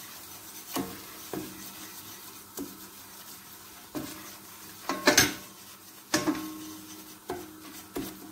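Wooden spoon stirring and scraping a stainless steel pot as flour cooks in melted butter into a roux for béchamel, with a faint sizzle underneath. The spoon knocks and scrapes against the pot at irregular moments, and one of these knocks, about five seconds in, is the loudest.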